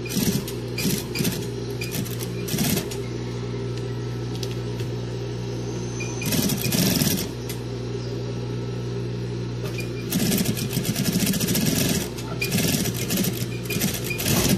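Sewing machine stitching in bursts: a few quick short runs at first, then longer runs of rapid needle strokes about midway and through most of the last few seconds, over a steady low hum.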